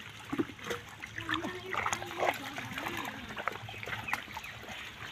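Hands squelching and splashing through wet pond mud while groping for fish: a run of short, irregular wet splats and sucks.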